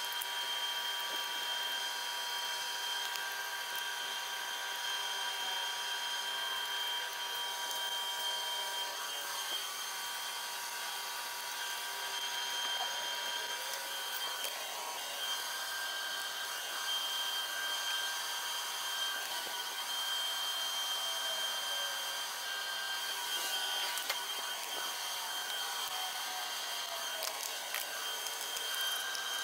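Steady high-pitched whine and hum of workshop background noise, with a few faint clinks of hand tools on an engine block.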